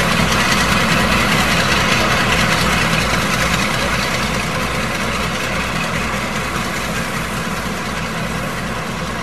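Diesel locomotive engine idling steadily, slowly fading over the second half.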